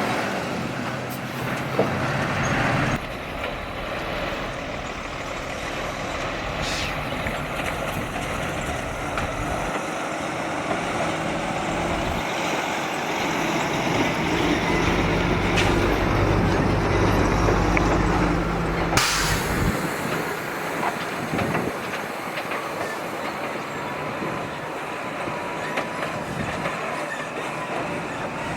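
Heavy diesel construction machinery running with a steady engine drone, its sound changing abruptly about 3 and 19 seconds in.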